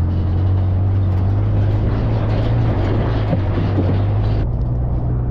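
Vehicle engine running steadily under way, a loud low drone. The higher hiss above it drops away about four and a half seconds in.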